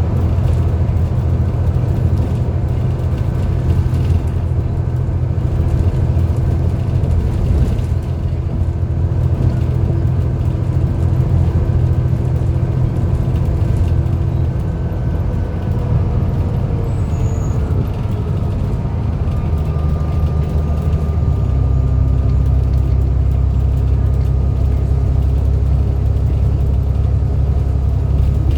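Alexander Dennis Enviro400 double-decker bus under way: a steady, loud engine drone with thin whining tones over it, the vacuum-cleaner-like 'hoover' whine. The whine glides down in pitch about halfway through, and a little after two-thirds of the way the drone steps up as the bus pulls harder.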